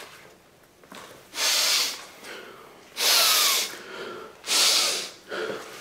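Three loud nasal breaths, sniffs or snorts of about half a second each, about a second and a half apart.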